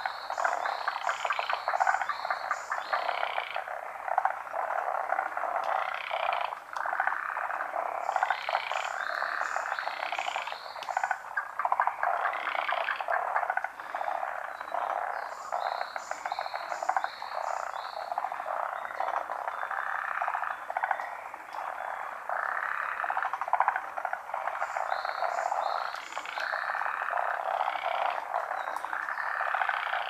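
A large chorus of many frogs calling together from a pond, a dense unbroken mass of rapid trilling and croaking. Every several seconds a quick run of higher-pitched notes rises above it.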